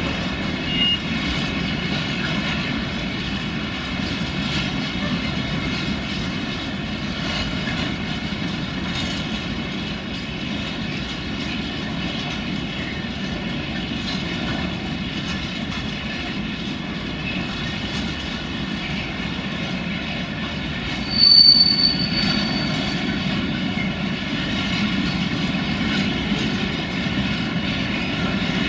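Eas-u open-top freight wagons rolling past, a steady rumble of steel wheels on rail with faint ringing tones. About 21 seconds in, a short high-pitched wheel squeal stands out as the loudest sound.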